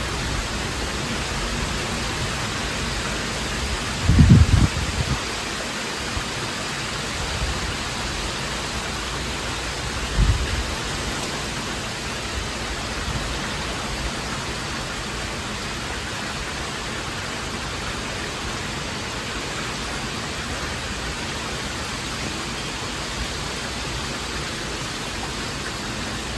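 Heavy rain falling steadily during a thunderstorm, an even hiss. A brief low thump comes about four seconds in, the loudest moment, and a shorter one about ten seconds in.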